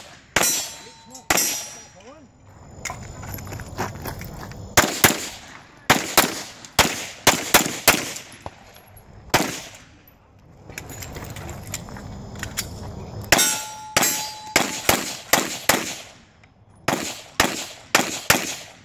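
Strings of rapid pistol shots from a 9 mm Glock 34, fired in quick pairs and fast runs with short pauses between positions. A few shots are followed by a ringing clang, typical of a hit steel target.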